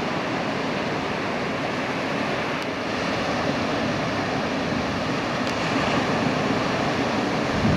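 Waves breaking on a beach: a steady rush of surf noise.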